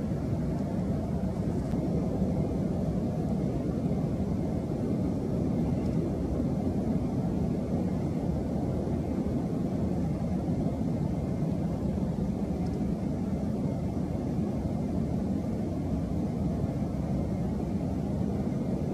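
Steady low rumble with no distinct calls or knocks.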